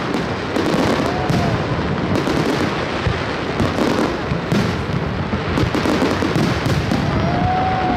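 Fireworks display: aerial shells bursting one after another, a dense run of bangs and crackling with no break.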